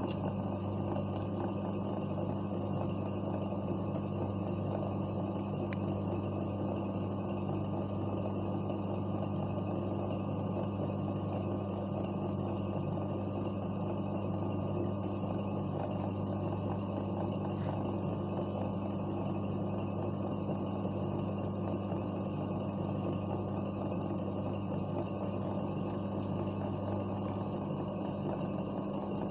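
Steady low electric hum of the embroidery sewing machine's motor running idle, not stitching, with a few faint ticks.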